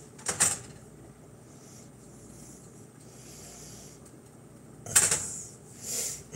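Butter melting in a skillet with a faint steady sizzle, broken by brief scrapes and clatters of a rubber spatula and the pan: one about half a second in and a louder cluster around five seconds in.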